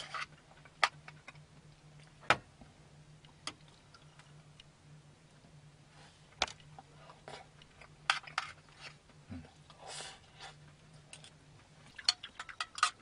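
Chopsticks and tableware clicking and tapping now and then while eating, over a faint steady hum. A quick run of clicks starts near the end.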